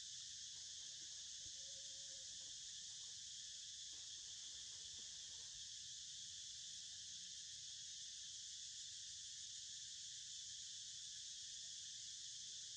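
Faint, steady high-pitched insect chorus, even throughout with no breaks, over a low rumble.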